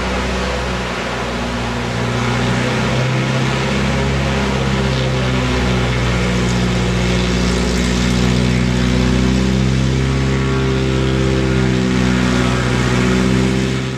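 Bushwacker light bush plane's piston engine and propeller running steadily as the plane taxis and turns on the ground, the engine note rising slightly in pitch about halfway through.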